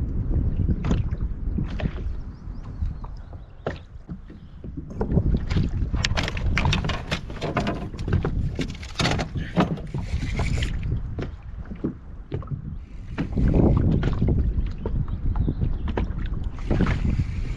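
Wind buffeting the microphone on a small plastic boat, with scattered knocks and clicks from handling, and brief splashy hissing about nine to ten seconds in.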